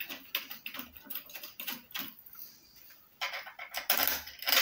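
Small metal clicks and scraping as nuts are fitted by hand onto the bolts joining a brush cutter's engine housing to its shaft. There is a short lull about two seconds in, then denser clicking from about three seconds in.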